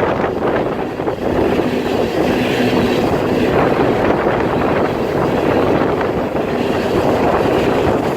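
Norfolk Southern freight train rolling past at close range, a steady, loud rumble and rattle of cars on the rails, with wind buffeting the microphone.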